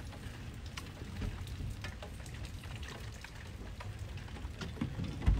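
Thunderstorm rain falling, with scattered drops ticking on nearby surfaces over a steady low rumble. A brief low thump comes near the end.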